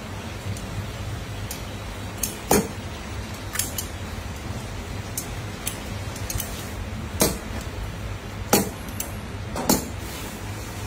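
Large kitchen scissors snipping through a raw black chicken carcass, giving sharp metallic clicks spaced a second or more apart, with fainter snips between.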